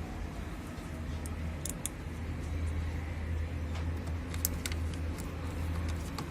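Light metallic clicks and ticks of screws and small metal fan parts being handled and fastened during reassembly, scattered over a steady low hum.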